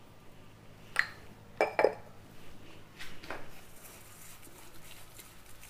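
Light clinks and knocks of a spoon on a stainless-steel bowl, about a second in and twice more soon after, some with a short metallic ring. After that comes a faint rustling scrape as a hand mixes the spice masala against the steel.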